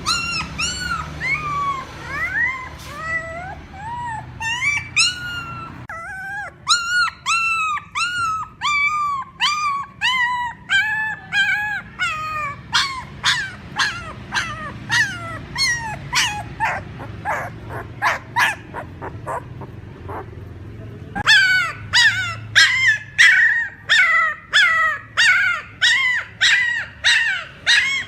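Puppy crying: a long run of short, high whimpers and yelps, each rising and falling in pitch. The cries come about two a second, grow faster and louder about two-thirds of the way through, and change character suddenly twice, as if spliced from separate recordings.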